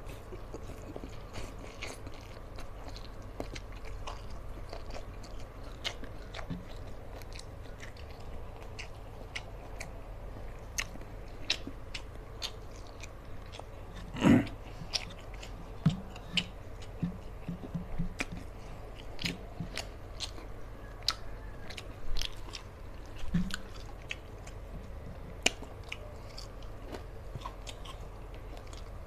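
Close-miked mouth sounds of a man eating rice and fried fish by hand: steady chewing with many small wet clicks and lip smacks. One louder short sound comes about halfway through, and a few more scattered ones follow.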